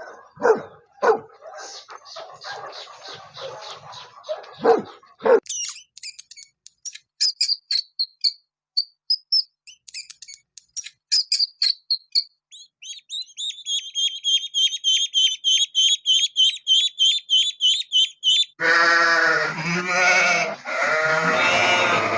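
A run of animal sounds: a few short knocks and calls, then a small bird chirping rapidly and repeatedly for about twelve seconds, then loud bleating starting near the end.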